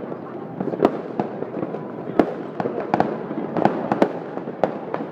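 Aerial fireworks going off overhead: an irregular run of sharp bangs and pops, a few a second, the loudest about a second in and again around two, three and four seconds, over a dense noisy wash.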